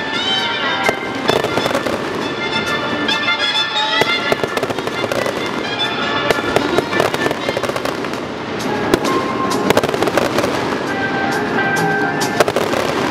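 Aerial fireworks going off in a continual run of bangs and crackling bursts, with music playing throughout.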